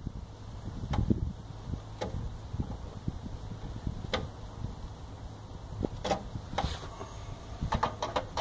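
Scattered light clicks and knocks of hands and tools handling wiring inside a metal breaker panel, over a low handling rumble, with a cluster of quicker clicks near the end.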